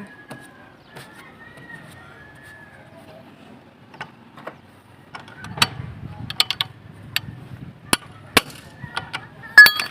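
Metal clicks and clanks of a wrench working the lug nuts of a refitted car wheel. The first half is faint, and a quick run of sharp clicks starts about halfway in, loudest near the end.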